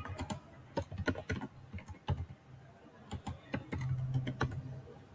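Typing on a computer keyboard: irregular keystroke clicks in quick runs with short pauses between words.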